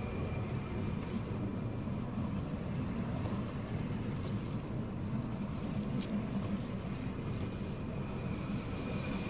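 Steady low rumble and hum of a red Rhaetian Railway electric train at the platform, with a faint high whine that comes back near the end.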